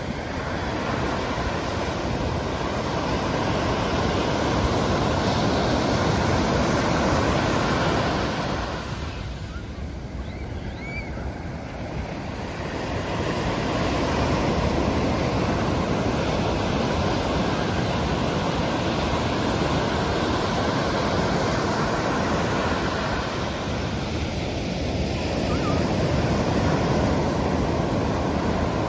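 Pacific Ocean surf breaking on the beach: a steady wash of waves that swells and eases, dropping to a lull about a third of the way in before building again.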